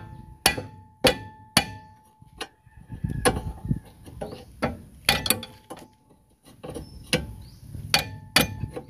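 Steel hammer blows on the front suspension knuckle of a Suzuki F6A multicab: about a dozen irregular strikes with a pause past the middle, each leaving a brief metallic ring. The hammering, with the arm pulled upward at the same time, is to shock loose a stuck suspension-arm bolt.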